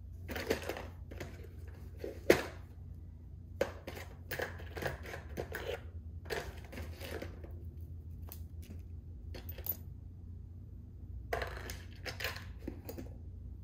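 Costume jewelry being handled and set down on a paper towel: small clinks of metal and beads with rustling of the paper towel, in scattered bursts, and one sharp click a little over two seconds in.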